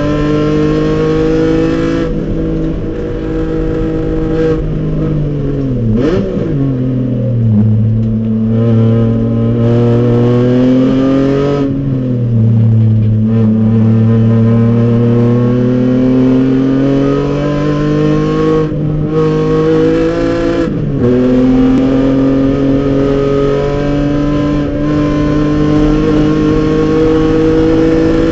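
Race car engine heard from inside the cabin, dropping in pitch as the car brakes and downshifts into a slow corner, with a quick rev blip on a downshift. It then pulls hard out of the corner, climbing steadily in pitch, dips briefly on an upshift and climbs again.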